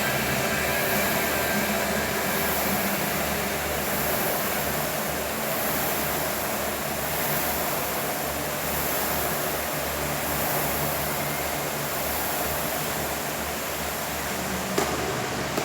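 Rowing machine flywheel whirring steadily, swelling about every second and a half with each stroke. A single sharp knock comes near the end.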